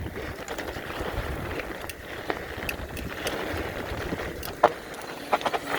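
Mountain bike rolling fast down a dirt trail: steady tyre and wind noise, with a few sharp knocks and rattles from the bike, one loud one a little before the end and a cluster just after.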